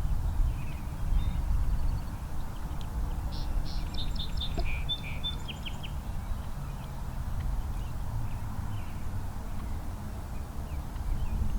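Small birds chirping, with a quick cluster of high chirps a few seconds in and scattered fainter ones after, over a steady low rumble.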